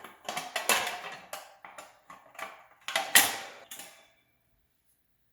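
Series of metallic clanks and rattles from the exercise bike's sheet-metal chain guard being handled, loudest about three seconds in, stopping after about four seconds.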